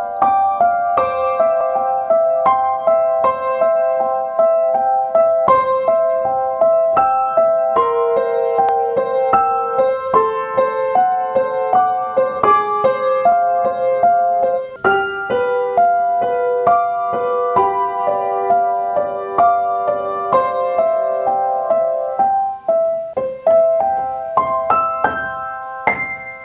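Upright piano playing a gentle melody of single notes over soft chords. It dies away in the last second or so.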